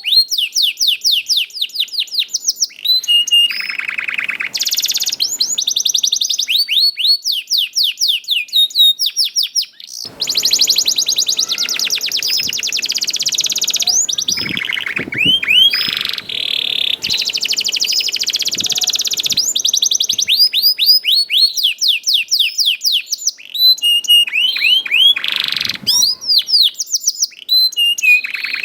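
Domestic canary singing a long, loud song of rapid chirps and rolling trills. Runs of quick falling notes, many per second, alternate with dense buzzy rolls.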